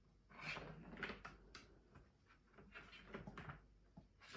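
Faint, irregular plastic knocks and rattles from a cat's plastic track toy as kittens bat and paw at it.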